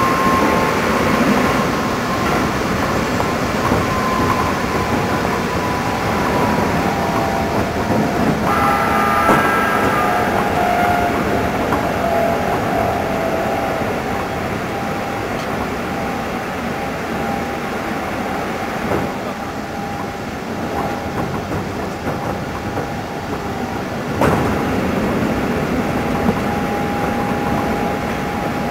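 Keikyu 600 series electric train running at speed, heard from inside the car: a steady rumble of wheels on rail, with faint held tones that drift in pitch. It passes through tunnels, and there is one sharp knock about 24 seconds in.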